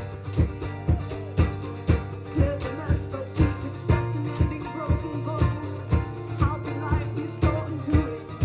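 Live band music: an instrumental passage of the song with guitar and bass over a steady percussion beat.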